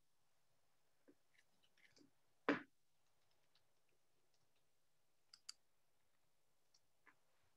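Near silence broken by scattered faint clicks, with one louder knock about two and a half seconds in and a quick pair of sharp clicks a little after five seconds.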